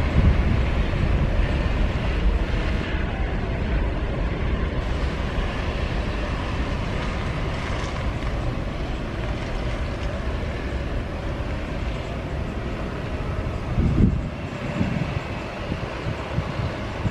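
Twin-engine jet airliner accelerating down the runway on its takeoff roll, its engine noise heard from behind, steady and slowly fading as it pulls away. Wind buffets the microphone, most strongly about 14 seconds in.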